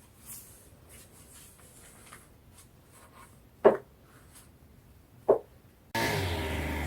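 Faint rubbing and scraping in a small room, two short knocks a second and a half apart, then a steady low drone that cuts in abruptly near the end.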